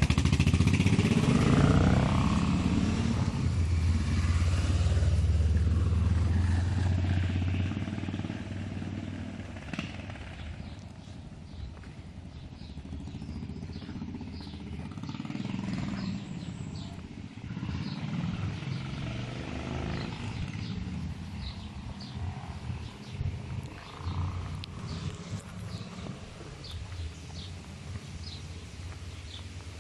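Motorcycle engine running and pulling away over cobblestones, loud at first and fading into the distance over the first eight seconds or so. After that the engine is faint, with short high chirps here and there.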